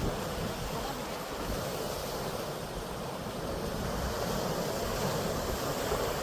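Sea waves washing on the shore in a steady rush, with some wind buffeting the microphone.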